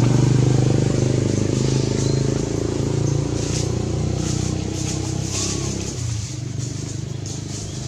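A motor vehicle engine running steadily, loudest at first and fading gradually as it moves off.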